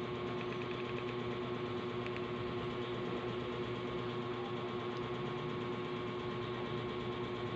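Steady background hum with one held tone, unchanging throughout.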